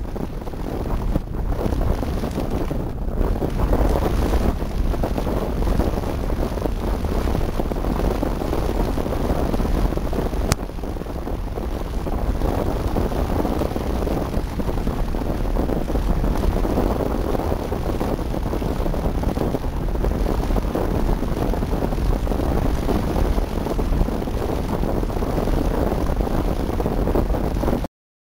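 Wind buffeting the microphone of a video camera carried aloft on a kite: a steady, deep rushing rumble, with a single sharp click about ten seconds in. It cuts off abruptly near the end.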